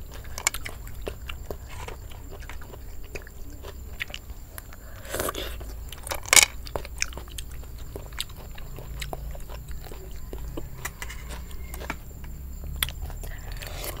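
Mouth sounds of eating a spicy Thai seafood salad of cockles, shrimp and crab: chewing and crunching with many small clicks and smacks, and a louder crunch about six seconds in.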